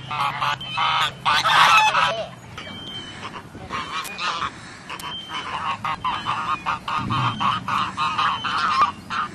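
Several domestic geese honking again and again in quick overlapping calls, loudest about one to two seconds in.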